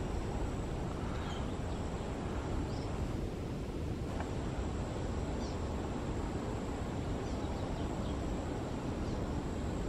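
Steady outdoor background hiss, with a few faint, brief bird chirps about a second in, near three seconds and midway.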